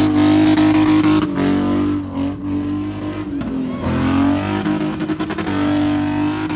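BMW E30 sedan's engine held at high revs as the car spins in circles. The revs sag and climb back again several times.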